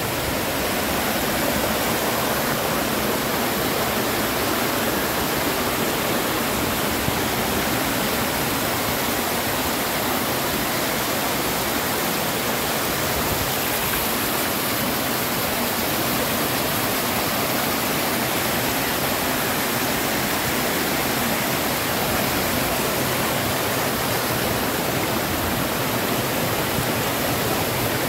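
Waterfall falling steadily, a continuous rush of water that holds at one level throughout.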